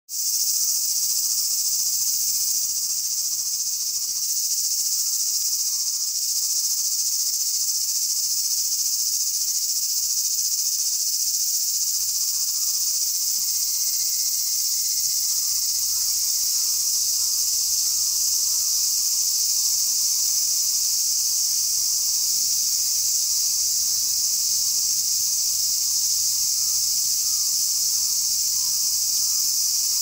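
Steady, high-pitched shrill chorus of insects, unbroken and unchanging in level.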